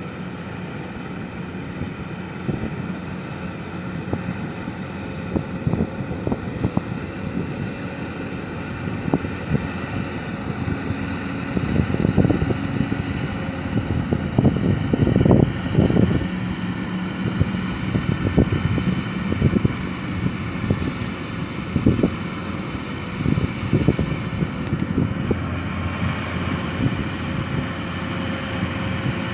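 An engine running steadily, with many irregular knocks and rattles over it, thickest in the middle.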